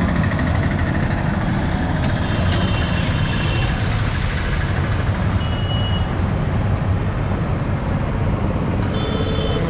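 Busy road traffic: vehicle engines running in a steady rumble, with a few short high-pitched tones sounding over it.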